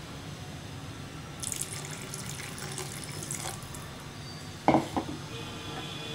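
Water poured into a pan of bitter gourd curry, splashing for about two seconds. Then come two sharp knocks near the end, the first the loudest sound.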